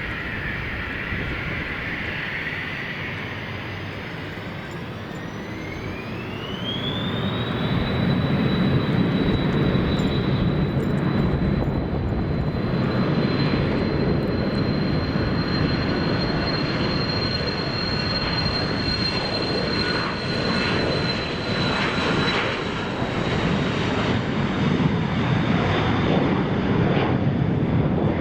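Embraer Phenom 300 business jet's twin turbofans spooling up for takeoff. A whine rises over a few seconds to a steady high pitch while a jet roar builds beneath it. The whine fades after about twenty seconds as the roar carries on.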